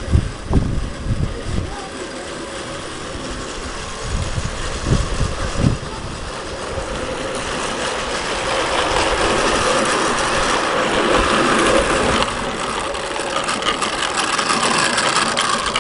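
Small live-steam garden-railway locomotive hissing and running, the steam sound building from about seven seconds in and strongest a few seconds later. Low thuds in the first few seconds.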